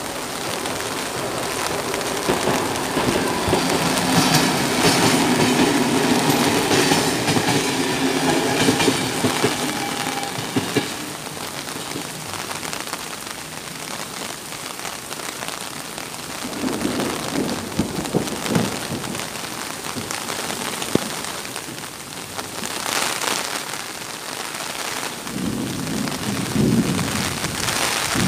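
Steady heavy rain falling on a wet road and surroundings. From about two seconds in to about eleven seconds, a louder low rumble with several steady tones rises over the rain. Two shorter low rumbles come later, one just past the middle and one near the end.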